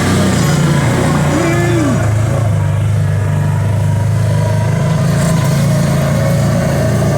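Kawasaki Teryx 800 side-by-side's V-twin engine running steadily under way. Its pitch drops a little about two seconds in, then holds even.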